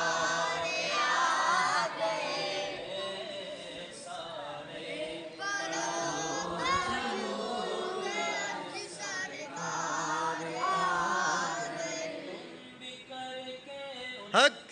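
Voices chanting a naat, an Urdu devotional poem in praise of the Prophet, unaccompanied, in long sung phrases that fade out about two seconds before the end. A brief, sharp rising squeal follows near the end.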